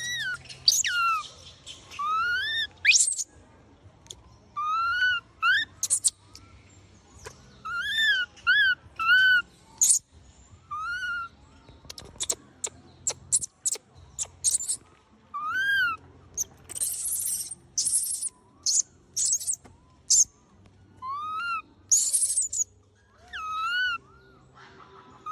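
Monkey calls: short, high, rise-and-fall squeaks repeated throughout, often two or three in quick succession. Scattered sharp clicks and a few brief hissy bursts fall between them.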